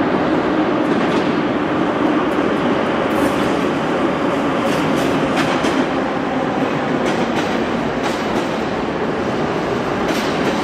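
Moscow Metro 81-717/714 subway train pulling into an underground station platform: a loud steady rumble with wheels clicking over rail joints, easing off as the train slows to a stop.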